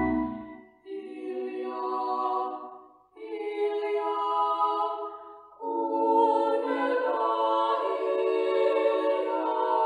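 A small ensemble of women's voices singing a Christmas song unaccompanied, in three phrases with short breaths between them. The low instrumental accompaniment drops out at the start, and the last phrase is fuller, reaching lower.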